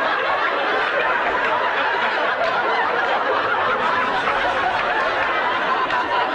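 Sitcom studio audience laughing, many people at once in a steady, sustained wave of laughter.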